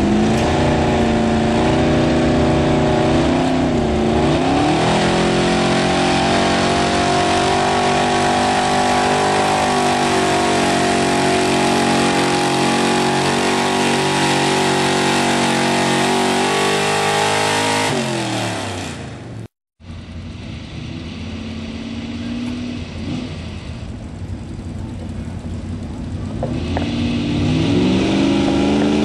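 Pickup truck's engine running hard under load while pulling a weight-transfer sled in a truck pull, holding a steady high pitch with a brief dip about four seconds in, then winding down about two-thirds of the way through as the pull ends. After a sudden break the sound is quieter, and near the end another pickup's engine revs up.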